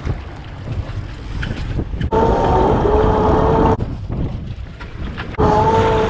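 Boat motor running with wind on the microphone, a low steady rumble. It changes abruptly twice, and in those stretches a steady whine sits over the rumble.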